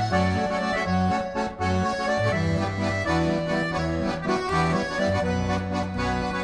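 Background accordion music: a lively tune over a steady, alternating bass line.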